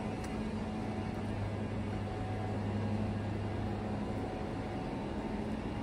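Steady low hum with a faint hiss from a standing passenger train's coaches, running evenly.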